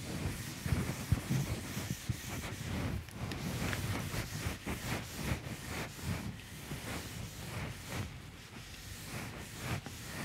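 A handheld eraser rubbing across a whiteboard in a run of short back-and-forth strokes, wiping off marker writing.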